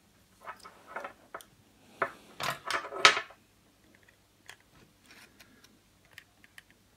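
Handling noise from electrical wiring work: an insulated earth cable and a plastic connector box being moved and fiddled with, rustling and scraping loudest for about a second midway, with scattered small clicks.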